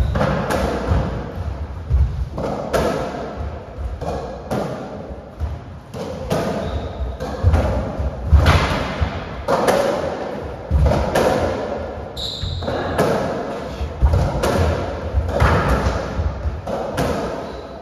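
A racketball rally: the ball is struck by the rackets and thuds off the walls and floor in a quick, uneven run of sharp hits, echoing in the court.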